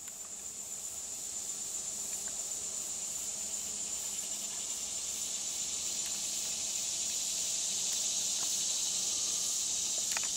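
A steady, high-pitched insect drone, slowly growing louder.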